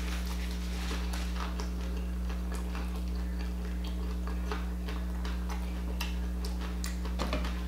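Close-miked chewing of a crunchy taco: scattered small crunches and mouth clicks over a steady low hum.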